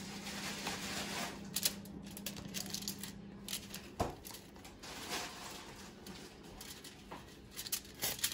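Food-preparation clatter: scattered light clicks and knocks of utensils and dishes. A steady low hum runs underneath and stops with a knock about four seconds in.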